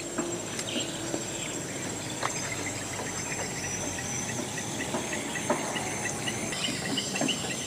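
Steady chorus of insects, a constant high-pitched chirring, with a few faint clicks and rustles.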